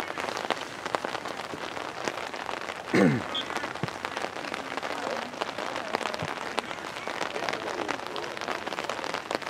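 Light rain pattering steadily close to the microphone, a haze of small irregular ticks. About three seconds in there is one short cry from the field that falls in pitch, and faint distant voices come and go.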